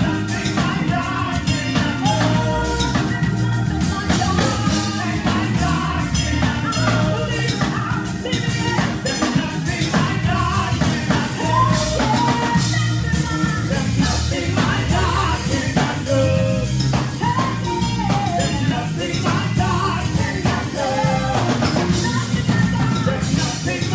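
Gospel praise music: a band with drum kit and bass keeping a steady beat under singing voices.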